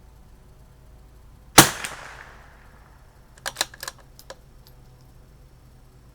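A single shot from a CZ 457 .22 LR bolt-action rifle, a sharp crack with a short echoing tail, followed about two seconds later by a quick run of metallic clicks as the bolt is worked to eject the case and chamber the next round.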